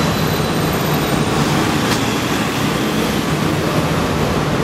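Minivan idling close by: a steady low engine hum under a constant hiss of vehicle noise.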